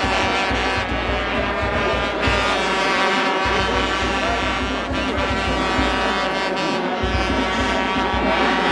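A loud, steady horn-like drone with many overtones, held without a break, over the din of a large crowd.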